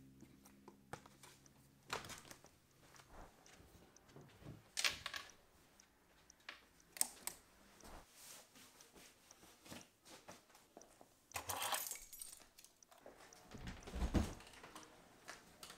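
Close handling sounds of someone getting dressed: shoelaces pulled tight on a sneaker and clothing rustling, with scattered small clicks and several brief swishes. A dull low thump comes near the end.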